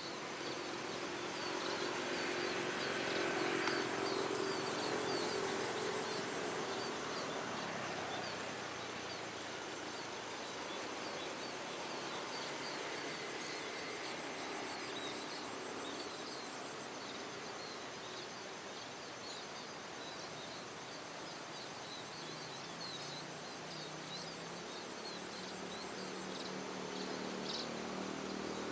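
Many short, high chirps from small birds, munias (pipit/emprit), scattered throughout over a steady, high-pitched insect trill. A low hum sits under them for the first several seconds.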